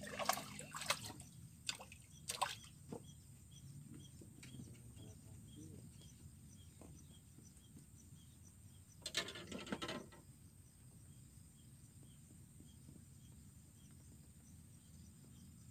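A few sharp clicks and rattles in the first three seconds and another cluster near the middle, over a faint steady high hum and a soft regular ticking of about two to three ticks a second.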